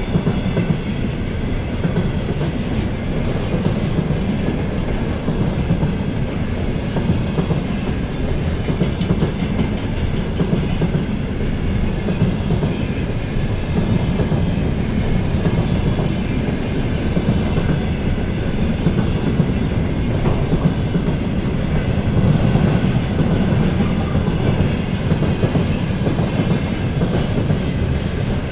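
Loaded container wagons of a freight train rolling past, with a steady heavy rumble and the clickety-clack of wheels over rail joints, and faint steady ringing tones above it.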